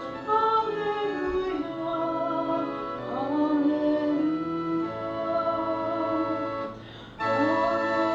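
Organ-accompanied sung Gospel acclamation (Alleluia) at Mass: a singer's melody over held organ chords, with a short break about seven seconds in before the next phrase begins.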